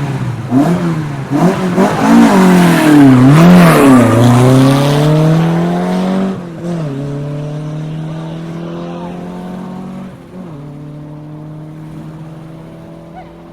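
Rally car engine revved hard in quick blips at the start, then launching away. The pitch climbs steadily, drops at gear changes about six and ten seconds in, and the sound fades as the car drives off.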